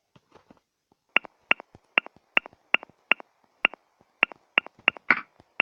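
Smartphone on-screen keyboard clicking as a message is typed: a run of short, sharp taps at about two or three a second, with one louder, rougher tap near the end.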